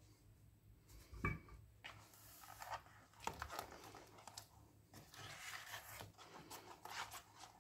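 Silicone spatula stirring and scraping cake batter around a plastic mixing bowl: a run of faint, uneven scraping strokes, with a single low knock about a second in.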